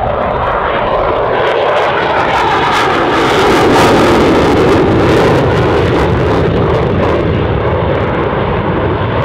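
Loud, steady jet noise from an F-16 fighter's single turbofan engine during a low display pass. It swells a little about four seconds in, then eases slightly.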